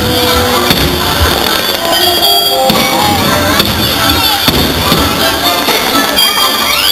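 Aerial fireworks shells bursting in a quick series of bangs and crackles over the show's music soundtrack. A rising whistle comes near the end.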